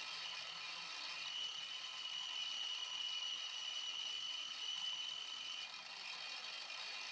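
Mini milling machine's spindle running with an end mill cutting a white plastic rod: a steady whine, with a higher tone standing out for about four seconds in the middle and then dropping away.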